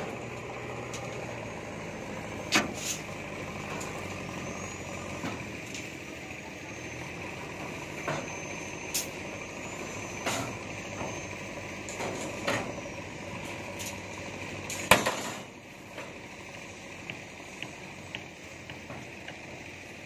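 Steel reinforcing rods (rebar) clanking against each other and the formwork now and then as they are handled and laid out for a roof slab, with the loudest clank about fifteen seconds in. Under them runs a steady engine-like drone.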